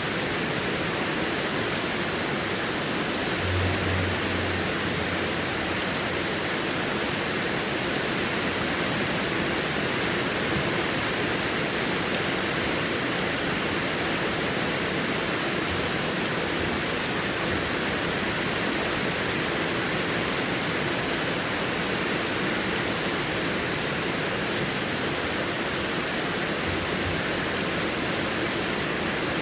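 Heavy rain falling steadily, a dense, even hiss of drops with no let-up.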